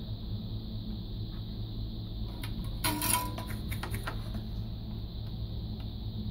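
Soldering iron tip jabbed and wiped in a brass-wool tip cleaner: a brief metallic scratching and clatter about three seconds in, over a steady low hum.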